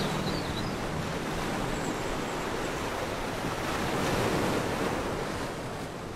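Sea waves washing, a steady rushing noise that swells about four seconds in and then fades out. The last notes of music die away in the first moment.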